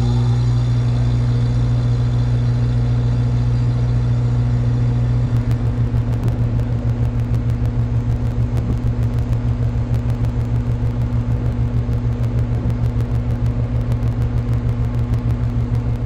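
Outdoor air-conditioning condensing unit running: a steady electrical hum from the compressor under the whir of the condenser fan. About five seconds in, the sound turns to a fast, pulsing flutter with faint ticks.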